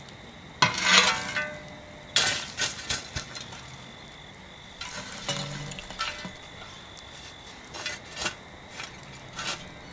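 A metal shovel scraping up hot coals from a campfire and tipping them onto a cast-iron camp oven's lid: a series of about half a dozen scrapes and clinks, the loudest in the first few seconds.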